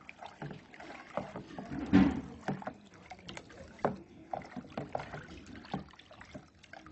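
A wooden spoon stirring water in a plastic tub, irregular sloshing and splashing with short clicks, loudest about two seconds in. The water holds dissolved baking soda, neem oil and a little dish soap.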